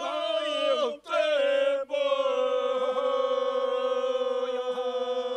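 Three men singing a traditional unaccompanied rural folk song in three voices: two short phrases ending in downward slides, then one long held chord from about two seconds in.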